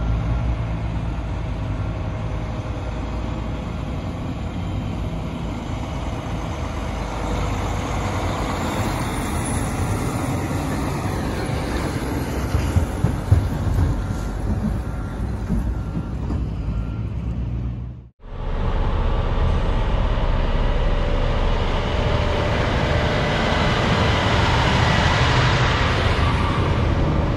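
Diesel semi tractor pulling a tri-axle aluminium end-dump trailer drives past, engine running steadily with tyre and road noise and a few sharp rattles partway through. The sound cuts out briefly about two-thirds in, then the rig passes close by and its tyre and road noise grows louder.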